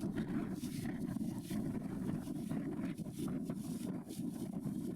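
Wind buffeting the microphone: a steady low rumble with no let-up.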